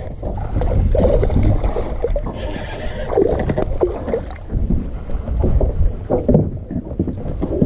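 Wind rumbling on the microphone over water noise around a small fishing boat, with uneven splashing as a hooked bass is fought to the boat.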